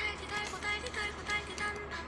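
Background music: a bright melody in short, high notes, a few to the second.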